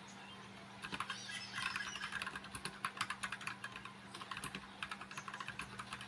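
Fast typing on an AULA F2088 mechanical keyboard: a rapid, uneven clatter of key clicks that starts about a second in, over a faint steady hum.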